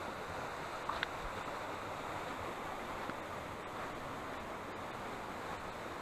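Waterfall and stream water rushing steadily, with a brief tap about a second in.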